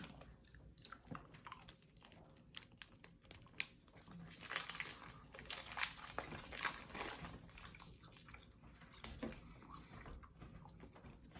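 Faint chewing and mouth sounds of people eating a soft taffy-style candy chew, with small clicks and crinkling of the candy's wrapper. There is a busier stretch of rustling and chewing from about four to seven seconds in.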